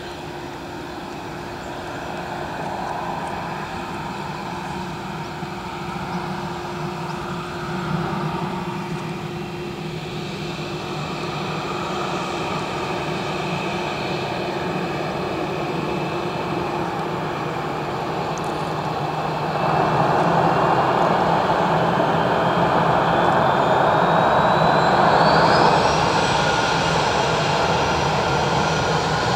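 Airbus A320 jet engines, first running at a low steady taxi hum. About two-thirds of the way in they spool up to takeoff thrust: a rising whine, then a louder steady engine noise as the takeoff roll begins.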